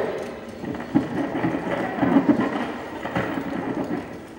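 A handheld phono cartridge's stylus dragging across the grooves of a stack of spinning vinyl records, giving a rough, crackling, rumbling noise that starts suddenly.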